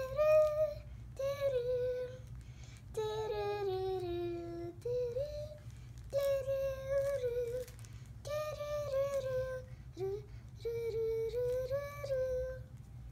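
A child humming a wordless tune in short phrases of held notes, with brief pauses between them.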